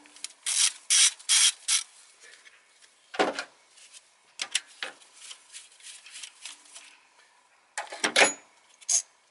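Ratchet wrench with a 10 mm socket undoing the ignition coil's hold-down bolt: four quick rasping ratchet strokes in the first two seconds, then a knock, light ticks, and a louder clatter of the tool near the end.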